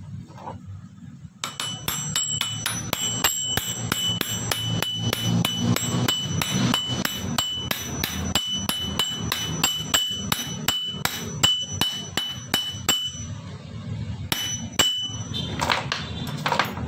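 Fast metal-on-metal hammer taps, about four a second, seating a new air-conditioning compressor clutch pulley on a Mitsubishi Mirage compressor. Each strike sets the pulley ringing. The tapping stops about 13 seconds in, and a few more strikes follow near 15 seconds.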